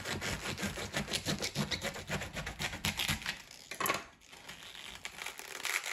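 Fresh globe artichoke being pulled and split apart by hand: a quick run of short crisp snaps and rubbing of the leaves, with one louder knock about four seconds in.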